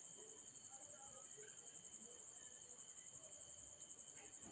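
Near silence with a faint, steady, high-pitched insect trill, and a few soft rustles of fabric strips being handled on the table.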